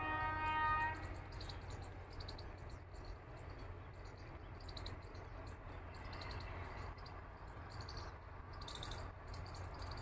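A distant electric locomotive's horn holding one steady note, cutting off about a second in. After it, insects chirping in short repeated pulses over a low steady rumble.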